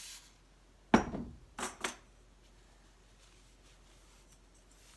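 A short hiss of cooking spray at the start, then a sharp knock about a second in and two quick sharp clicks just after. The rest is faint rubbing as a cloth wipes the oil over a metal circle cutter.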